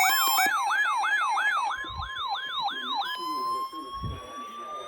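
Electronic siren yelping, its pitch sweeping up and down about three times a second over steady tones. Just after three seconds the yelp stops and gives way to a single tone that slowly rises in pitch.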